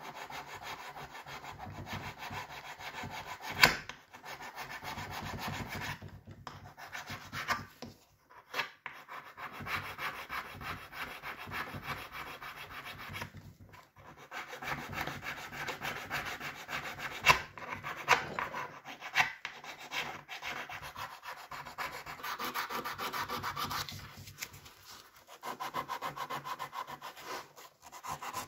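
A flat blade scraping along a metal tube from an old blowtorch in quick, repeated strokes, taking off old coating and residue. There are brief pauses between strokes and a few sharp clicks, the loudest about three and a half seconds in.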